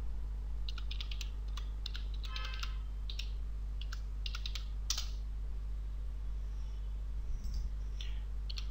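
Computer keyboard typing: a quick run of keystrokes, then a few scattered clicks near the end, over a steady low hum.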